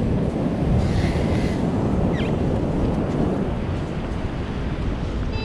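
Strong wind buffeting the microphone over the rush of beach surf, steady throughout.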